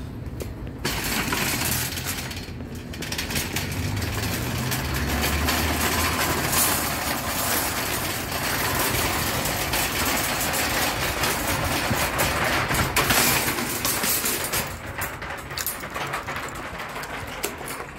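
Empty wire shopping cart being pushed along, its metal basket and casters rattling steadily as it rolls over the paving. There is a brief lull about two and a half seconds in, and the rattle turns uneven and drops off near the end.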